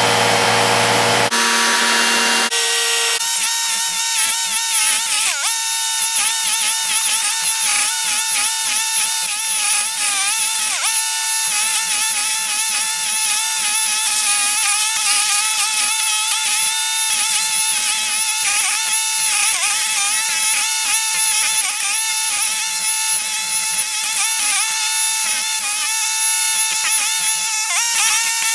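Toro STX-38 stump grinder running hard, its spinning cutter wheel grinding into a wood stump. The machine's pitch wavers continually as the cutter bites and eases.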